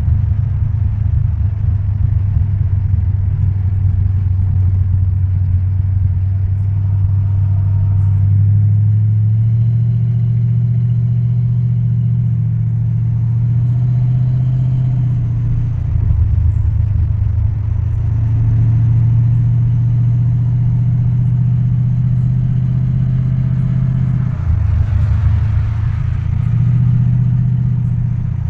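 1972 Pontiac Grand Prix's V8 engine and road noise heard from inside the cabin while driving: a loud low drone whose pitch steps up and down several times as the car speeds up and eases off.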